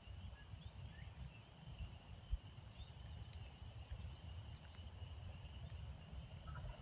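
Quiet woodland ambience: scattered small bird chirps over a steady high-pitched hum, with a low rumble on the microphone and one soft thump about two seconds in.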